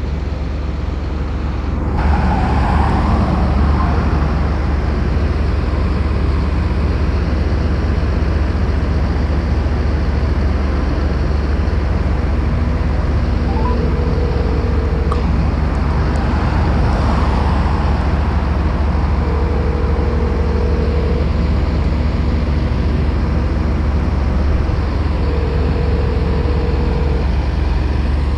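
Telephone ringback tone heard through a phone's speaker, a call ringing out unanswered: two-second rings repeating every six seconds, starting about halfway through. Under it runs a steady low rumble of road traffic, with cars passing now and then.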